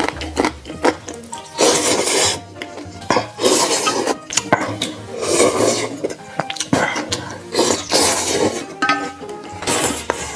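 Noodles being slurped in several long, noisy pulls, with chopsticks clicking against an enamel bowl in between.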